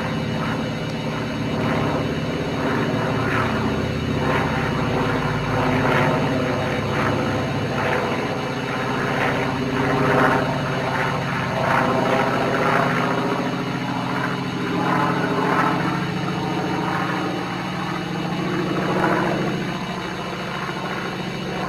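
North American B-25 Mitchell bomber flying overhead, its two Wright R-2600 radial engines giving a steady propeller drone with a pulsing beat. The drone is loudest around the middle and eases off near the end as the plane moves away.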